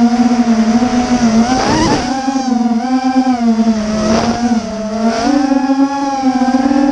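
A 250-size FPV racing quadcopter's motors and propellers buzzing loudly, the pitch wavering up and down as the throttle changes. There are brief rushes of noise about two and four seconds in.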